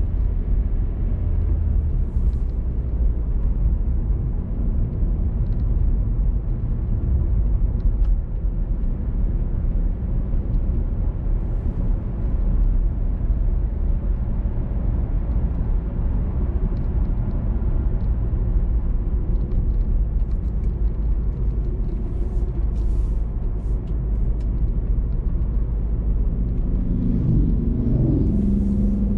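Car driving along a road: a steady low rumble of engine and road noise, with a short wavering tone near the end.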